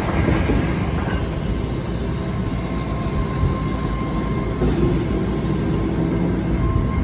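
Concrete pump truck running nearby, a steady low rumble with no break.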